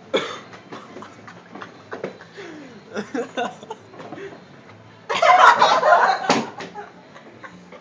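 People laughing and snickering, with several sharp knocks from a mini fridge door being pushed hard and bumping without closing. A louder burst of noise comes a little past the middle.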